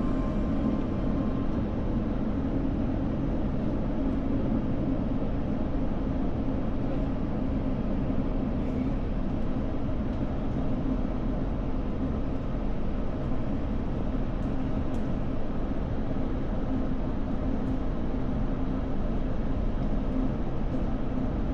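Steady hum and rush of airliner cabin noise with the jet engines running, an even low drone that neither rises nor falls.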